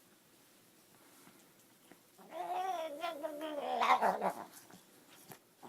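A pet animal's drawn-out, wavering vocal call lasting about two seconds, starting a couple of seconds in and trailing off into a few shorter sounds.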